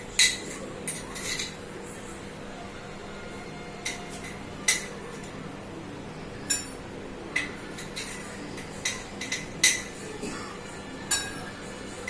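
Metal spoon clinking against a glass and a sugar container while sugar is spooned in: about a dozen short, sharp clinks at irregular intervals.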